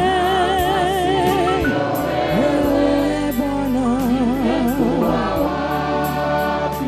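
A woman singing a gospel song into a microphone, holding long notes with a strong vibrato, over musical accompaniment.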